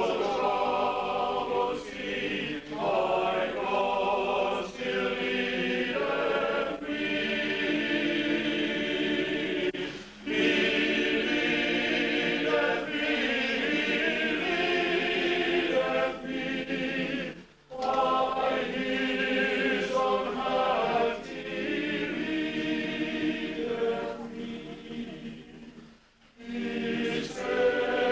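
Mixed choir of uniformed Salvation Army songsters singing a sacred song in parts under a conductor, in long held phrases with three short pauses between them.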